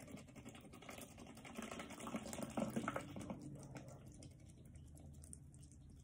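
Water poured from one plastic bottle into another that holds flowers and small pine cones: a faint trickling and pattering into the plastic, strongest in the middle.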